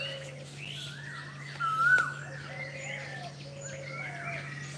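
Several birds chirping and calling, with quick rising and falling whistled notes and one louder swooping call about two seconds in. A steady low hum runs underneath.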